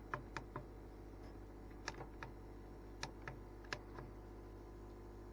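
Small plastic buttons on a diesel heater's controller clicking as they are pressed, about nine clicks, several in quick pairs, with no response from the unit, over a faint steady hum.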